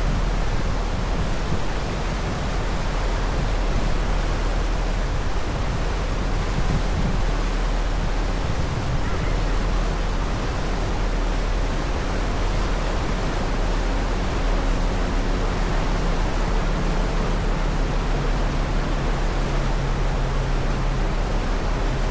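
Harbour ferry underway: a steady rush of wind and churning wake water on its open stern deck, with a deep rumble underneath. A low engine hum comes through more clearly in the second half.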